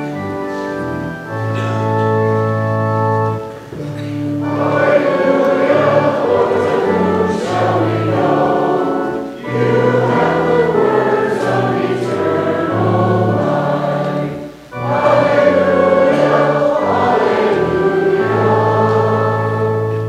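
Organ playing held chords, then congregation singing with the organ in three phrases, the sung acclamation before the Gospel reading. The organ holds a final chord alone near the end.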